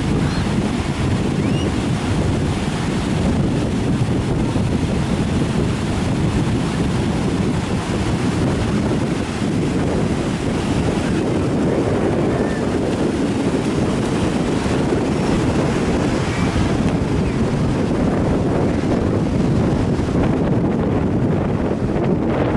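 Sea waves surging and breaking on a beach, mixed with heavy wind noise buffeting the microphone as a steady low rush.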